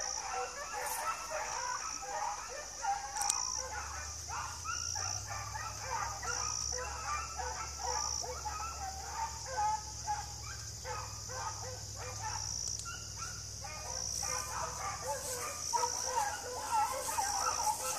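A pack of beagles baying together, many voices overlapping without a break.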